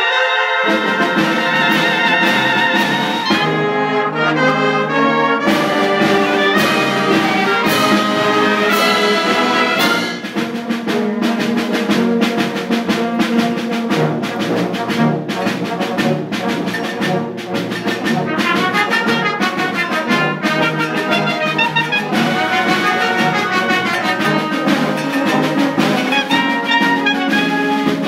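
Community band playing, with the brass section of trumpets and trombones prominent; from about ten seconds in a run of short, evenly repeated strokes drives the music along.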